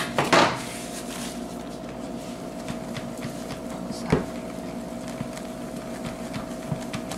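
Wooden spoon stirring thick, sticky melted marshmallow in a plastic bowl, with a scrape just after the start and a sharp knock of the spoon against the bowl about four seconds in, over a steady appliance hum.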